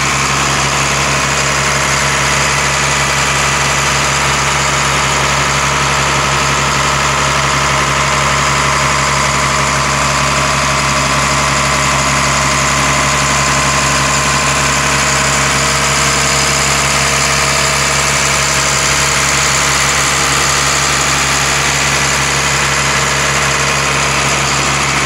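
Caterpillar diesel power unit of a 1994 Tigercat 726 feller buncher running steadily, heard up close at the open engine compartment.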